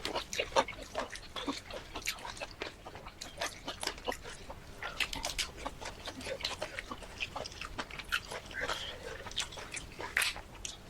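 Close-up mukbang eating sounds: people chewing shrimp and rice, with frequent wet smacks and sharp mouth clicks.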